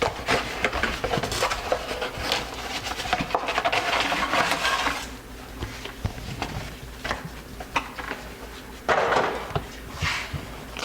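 Crinkling and rustling of a carburetor rebuild kit's packaging being opened by hand, with small clicks of parts being handled; a louder rustle about nine seconds in.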